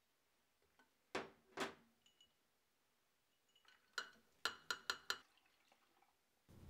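Faint kitchen handling around a glass blender jar: two quick swishes about a second in, then a run of five or six sharp clinks of a bowl against the glass jar as milk is poured in over ice and fruit.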